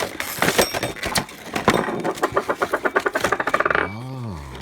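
Hard clicks and knocks of the door lock installation kit's parts and plastic packaging being handled, then a fast, even rattle for about a second and a half. A short hum of a voice rises and falls near the end.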